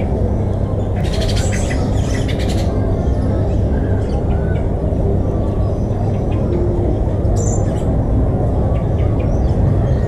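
Harsh, raspy parrot squawks, one run about a second in and a shorter one near the end, over a steady low rumble.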